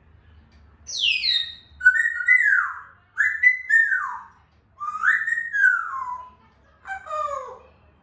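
African grey parrot whistling: a run of about five sliding whistles, most of them falling in pitch, starting about a second in, with the last one pitched lower.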